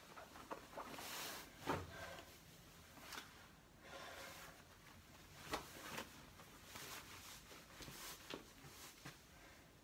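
Faint rustling of clothing as the dress is handled and worn, with a few short soft clicks or knocks.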